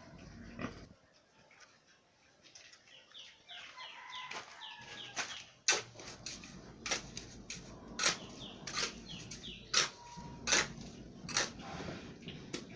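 Sharp scrapes and knocks of a trowel working fresh cement mortar around concrete blocks, coming roughly once a second from about halfway through. Birds chirp in short repeated calls before the knocks start.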